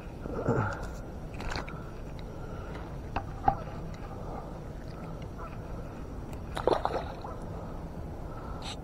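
Light handling noises while a small bass is unhooked from a soft plastic lure: a few scattered clicks and knocks, with two short mumbled sounds from the angler.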